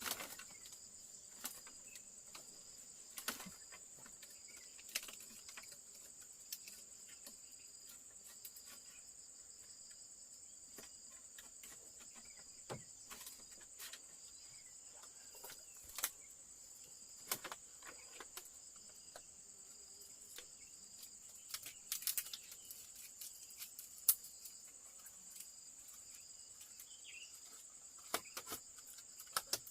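Faint, steady high-pitched insect chirring with a pulsing edge, like a chorus of crickets. Scattered light knocks and taps are heard over it, a cluster about two-thirds of the way through and the sharpest one soon after.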